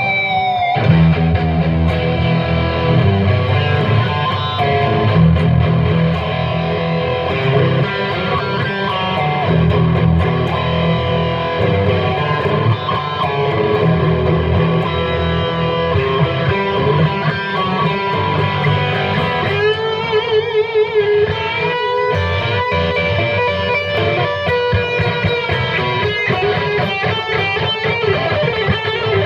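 Epiphone ES-339 semi-hollow electric guitar played through an amp: sustained notes and chords ringing over low notes, with wavering, bent notes about two-thirds of the way through.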